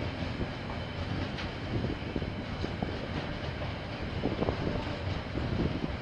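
KiwiRail train rolling past, a steady rumble of wheels on rails with scattered irregular clicks, picked up by a security camera's microphone.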